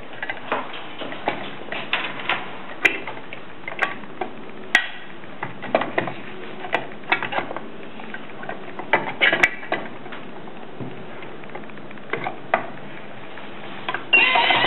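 Irregular plastic clicks, taps and knocks as the cover and parts of an automatic carousel tape dispenser are opened and handled while tape is loaded.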